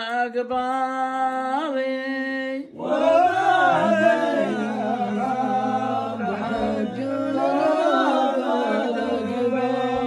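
An elderly man's voice chanting Bedouin poetry unaccompanied, drawing the words out into long sung notes. One steady note is held for almost three seconds, then after a brief break a wavering, ornamented melodic line follows.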